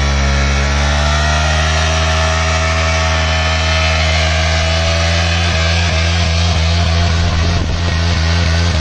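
KTM Duke 390's single-cylinder engine held at steady high revs during a stationary burnout, its rear tyre spinning on wet concrete. The note flutters briefly in the second half, then steadies again.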